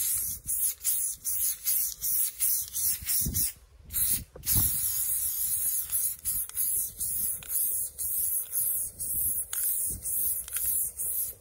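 Aerosol spray paint can hissing in many short bursts, a couple each second, with a brief pause a little over three seconds in.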